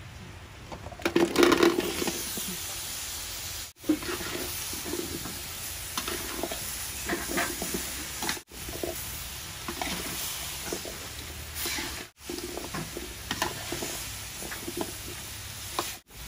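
A metal spatula stirring and scraping in a metal wok, with irregular knocks and clinks over bubbling, sizzling liquid as sweet potato chunks are turned. There is a louder burst of clatter about a second in, and the sound breaks off briefly three times.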